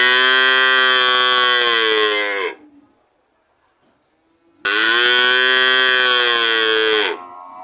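A cow mooing: two long, loud moos of about two and a half seconds each, a couple of seconds apart, each dropping in pitch as it ends. A quieter moo begins near the end.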